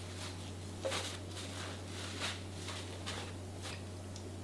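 Soft, scattered rustles and light taps of damp perilla leaves being laid by hand into a glass container, over a steady low hum.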